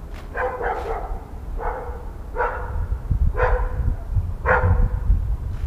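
A dog barking repeatedly, short barks about once a second, over low thuds of footsteps and camera handling.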